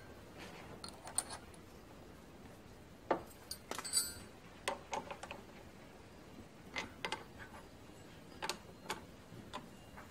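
Scattered, irregular light metallic clicks and clinks, a few with a brief ring, as a drill bit and small hand tools are handled and fitted at a drill chuck. The machine itself is not running.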